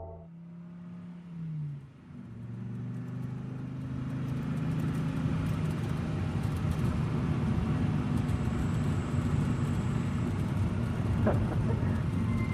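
A vehicle engine running with a low rumble, growing louder over the first few seconds and then holding steady, after a brief falling tone about a second in.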